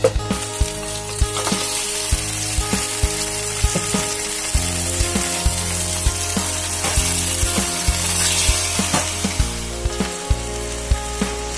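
Raw mutton pieces sizzling as they fry in hot oil, butter and ginger-garlic paste in a pan, with background music carrying a steady beat over the sizzle.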